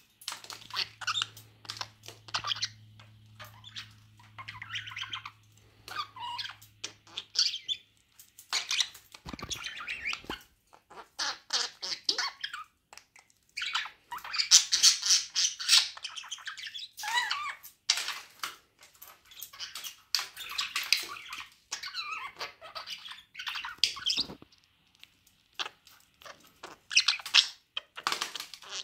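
Pet budgerigars chirping and chattering in quick, irregular bursts, loudest about halfway through.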